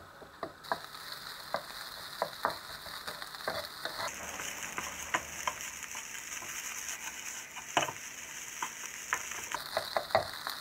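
Fried rice sizzling over high heat in a non-stick pan while a spatula stirs and turns it, scraping and knocking against the pan in irregular clicks over a steady frying hiss. The rice is being fried dry until it starts to smoke.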